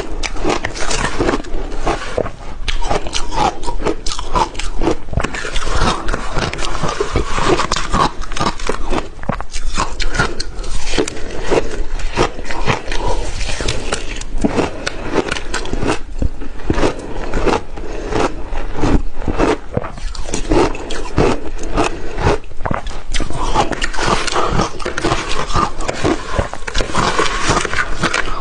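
Crushed ice crunched and chewed in the mouth, close-miked: a dense, continuous run of crackling crunches. A metal spoon scrapes and scoops the ice in a glass bowl in between bites.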